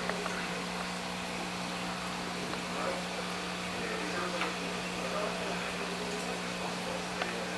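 Aquarium pump humming steadily under a hiss, with a couple of faint clicks.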